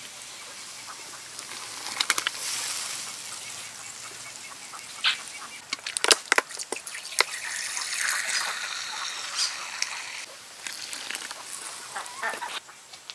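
A large pot of broth at a rolling boil, bubbling and hissing, while domestic fowl call. A cluster of sharp clicks and knocks comes about six to seven seconds in.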